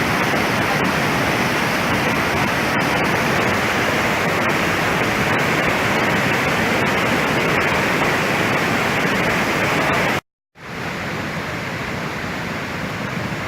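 Waterfall's steady rush of falling water. It cuts off abruptly for a moment about ten seconds in, then returns a little quieter.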